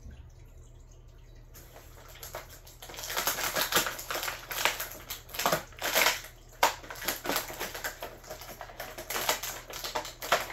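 Action-figure packaging being handled and opened: plastic and cardboard rustling and crinkling in irregular bursts. It starts softly about a second and a half in and grows busier and louder from about three seconds in.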